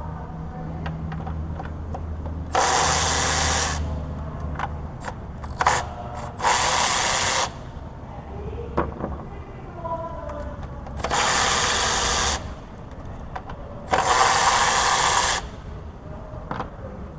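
Compressed-air tool run in four short bursts of about a second each, a loud even hiss with small clicks and knocks of hand work between the bursts.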